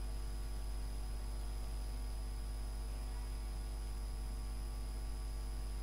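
Steady electrical mains hum, a low buzz with many overtones, plus a thin high steady tone: the background noise of the recording setup. No other sound.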